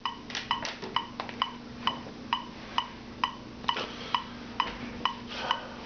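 Metronome ticking steadily, a little over two clicks a second, each a short sharp tock. Irregular clicks and knocks from handling come in between, with a faint steady hum behind.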